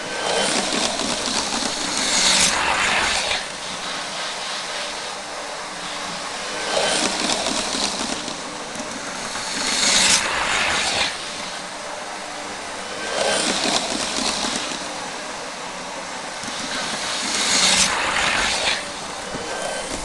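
Hornby model trains, a Class 43 HST and a Class 390 Pendolino, running on DC: steady motor whirr and wheels rattling over the rail joints, swelling five times as a train passes close by.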